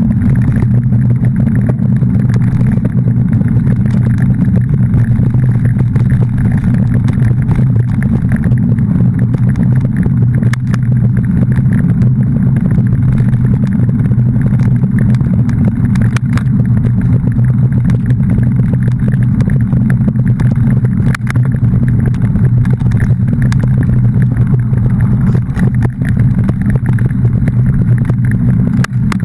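A steady, loud, low engine drone that holds an even pitch throughout, with no revving.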